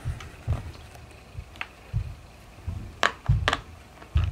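Plastic Imaginext figures being handled and pressed onto the plastic Batman Command Center playset: several sharp plastic clicks and soft low thumps at irregular intervals.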